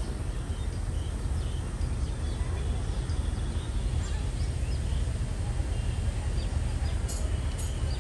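Small birds chirping in short calls over a steady low rumble, with a few sharp clicks near the end.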